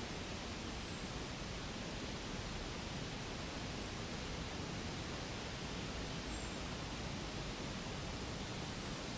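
Steady rushing outdoor noise with a faint, high, falling chirp that repeats four times, about every two and a half seconds.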